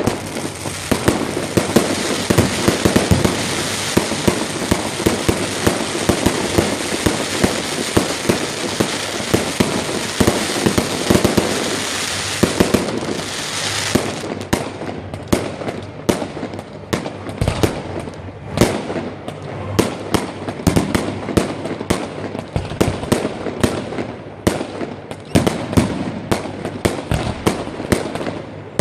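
Fireworks display: a dense, unbroken barrage of bursts for about the first half, then separate sharp bangs, a few a second.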